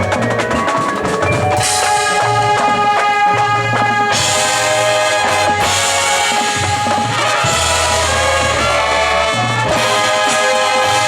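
High school marching band playing: sustained wind and brass chords over drums and mallet percussion.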